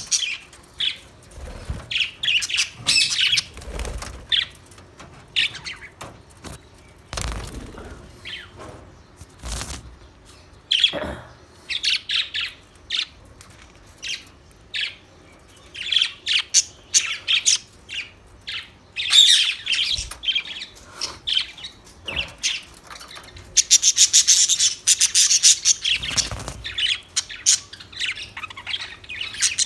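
Budgerigars chirping and chattering in short bursts, with a dense run of rapid chatter late on. A few soft thumps come in between.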